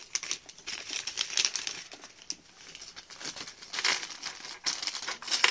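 Plastic bag of model kit parts crinkling and rustling as it is handled, with irregular crackly bursts.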